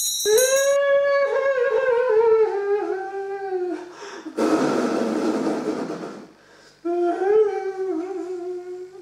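A high voice wailing in long, wavering mourning cries, the first sliding down in pitch over a few seconds, with a loud noisy burst of breath between the cries. A brief high chime at the very start.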